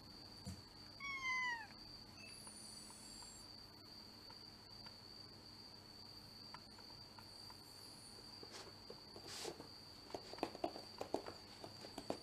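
A house cat gives one short meow that falls in pitch, about a second in. Near the end come soft, irregular little clicks.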